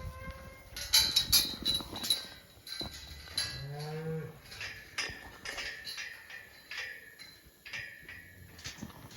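Beef calves mooing, with one clear drawn-out moo that rises and falls about halfway through. Sharp knocks and clattering around them, loudest about a second in.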